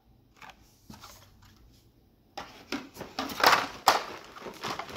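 Plastic packaging crinkling and rustling as blister-carded diecast cars are handled in a plastic-lined cardboard box. Faint at first, then a run of crinkles and knocks from about halfway, loudest a little past the middle.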